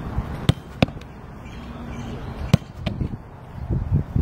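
A football being struck and caught in goalkeeper training: a series of sharp thuds, in pairs about a third of a second apart, over a steady low background.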